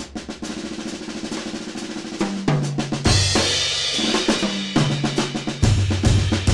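Acoustic drum kit played with sticks: soft, quick strokes on the snare, then tom-toms at stepped pitches and a cymbal crash about three seconds in, growing louder near the end with low bass-drum and tom hits.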